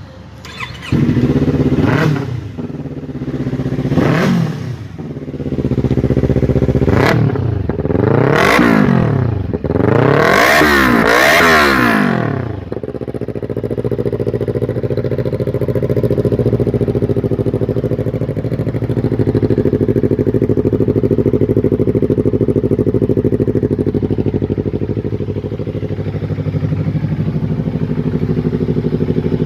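Yamaha R25's 249 cc parallel-twin four-stroke engine revved in about five quick blips, each rising and falling in pitch, the last held longest. It then settles to a steady idle for the second half.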